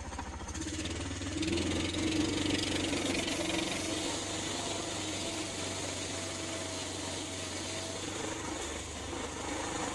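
DuroMax 440 18 hp single-cylinder engine running in a small car as it pulls away in first gear, picking up a little about a second and a half in, then running steadily.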